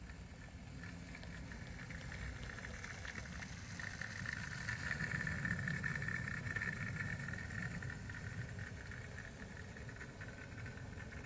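Model pannier tank locomotive running along the track: an electric motor and gear whine with wheels clicking over the rails and pointwork, loudest about four to seven seconds in as it passes close, then easing as it moves away.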